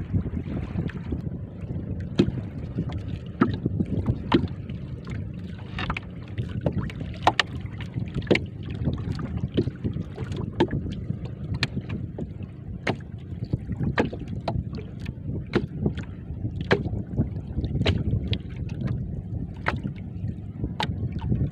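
Small boat drifting on choppy water: waves slap against the hull in sharp, irregular knocks, about one or two a second, over a steady low rumble of wind and water.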